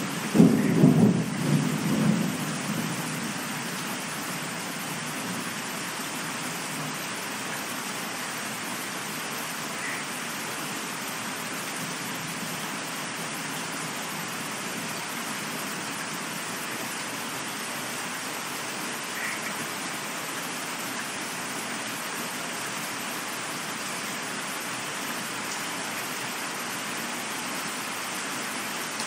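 Thunder rumbling and dying away over the first few seconds, then steady rain falling.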